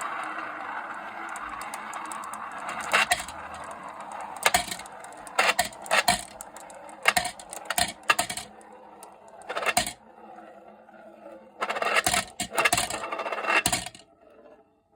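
Marbles rolling and spinning round the tiers of a marble-run funnel (kuroon): a steady rolling whirr that fades after a few seconds, then a run of sharp clacks and rattles as marbles drop through and strike the track, in clusters near the end, stopping about a second before the close.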